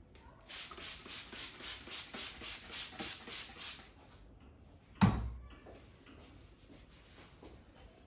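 Hand-held water spray bottle spritzing wet hair in quick hissing puffs, about six a second, for some three seconds. About a second later comes a single sharp thump, the loudest sound.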